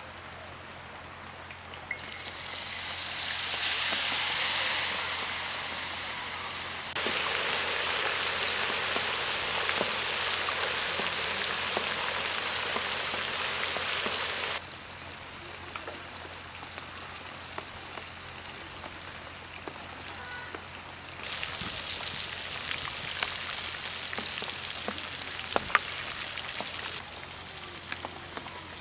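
Food sizzling in hot oil, in several stretches that start and stop abruptly, the loudest in the middle.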